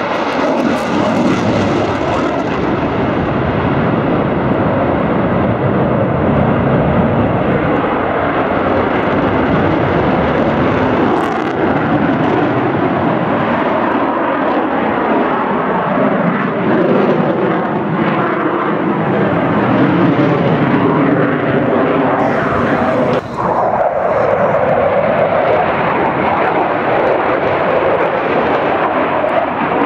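Loud, continuous jet noise from an RAF Eurofighter Typhoon's twin Eurojet EJ200 turbofans during a flying display, with the afterburners lit near the start.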